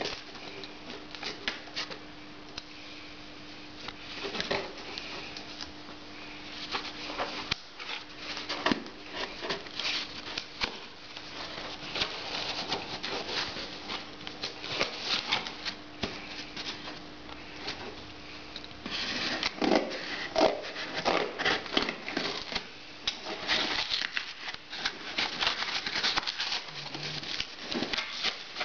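Hands scratching, rubbing and picking at packing tape on a cardboard shipping box, a string of irregular scrapes and clicks that grows busier about two-thirds of the way in as the tape is cut. A faint steady hum stops at about the same point.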